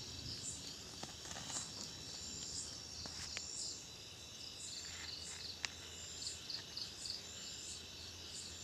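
Faint chirping of night insects such as crickets: a continuous high trill with short chirps repeating about every half second. A single sharp click sounds a little past halfway.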